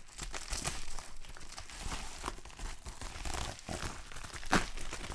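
Crinkling and rustling of a silver metallised bubble-wrap mailer bag as it is handled and pulled at, with a sharp snap about four and a half seconds in.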